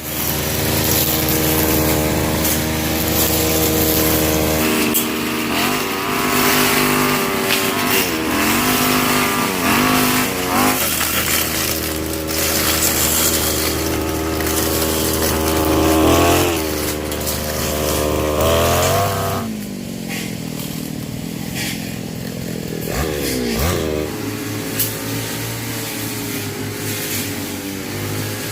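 Small petrol engine running, its pitch rising and falling several times as the throttle is opened and eased off.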